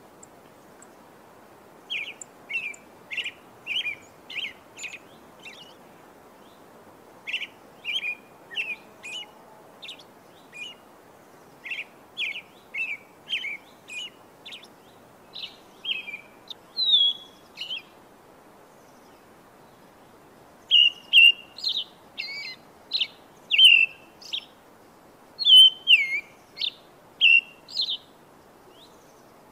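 Birds chirping: short, high calls repeated in quick runs of one or two a second, broken by pauses of a second or two, with some later calls sliding down in pitch over a faint steady hiss.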